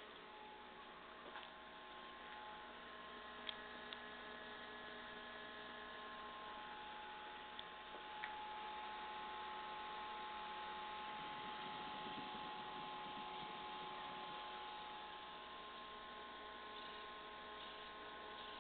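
A radio's speaker giving out the signal of a homemade mini FM transmitter: a steady electronic hum with several held whining tones at different pitches over a faint hiss. There are a few faint clicks along the way.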